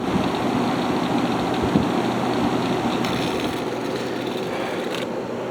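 Haier ESA410J-RGB window air conditioner running with its fan on high: a steady rush of air over a low hum, easing slightly near the end.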